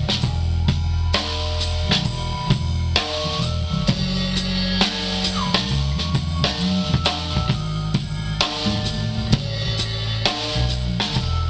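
Band music with no singing: a drum kit keeps a steady beat with snare and bass drum over a continuous bass line and held notes from other instruments, one note bending in pitch about five seconds in.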